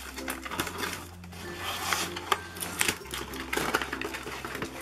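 Clear plastic blister packaging crinkling and clicking as a boxed toy playset is handled, over background music.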